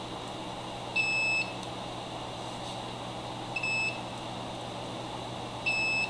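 Multimeter continuity tester beeping three times, each a short steady high tone roughly two and a half seconds apart, as the probes touch the XLR cable's connector pins. Each beep signals an unbroken connection through that conductor.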